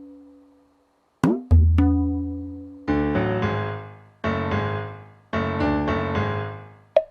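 Background music: a couple of struck low notes, then chords struck three times, each dying away.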